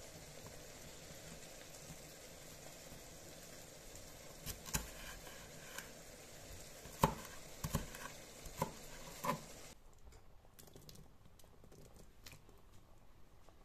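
Chef's knife slicing a red bell pepper on a wooden cutting board, with a handful of sharp knocks as the blade hits the board. About ten seconds in it goes quieter, with a few soft ticks as the chopped pepper is dropped into a simmering sauce.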